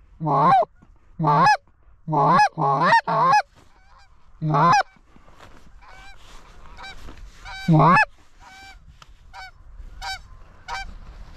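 Canada goose call blown close by: a quick run of loud honks and clucks in the first few seconds, each breaking from a low note into a higher one, and one more near eight seconds. A flock of Canada geese answers with fainter, repeated honking through the second half.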